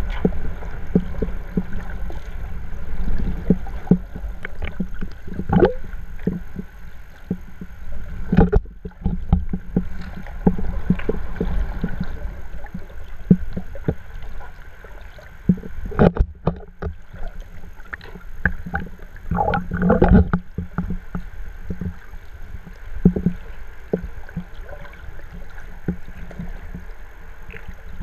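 Water heard underwater through a waterproof camera housing: muffled sloshing and rumbling, with frequent irregular knocks and taps as the swimmer moves the camera.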